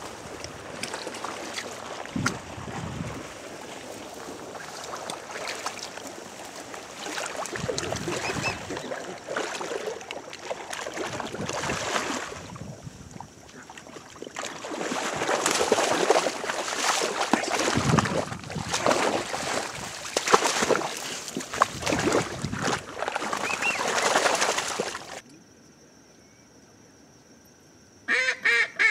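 Ducks and geese calling on the marsh, a busy overlapping chorus of quacks and honks that grows louder about halfway through. It breaks off suddenly about 25 seconds in, and a short burst of calls follows just before the end.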